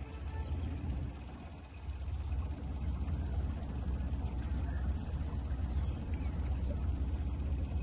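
Steady low rumble of wind buffeting the microphone, unsteady in strength, with no distinct paddle strokes or engine note standing out.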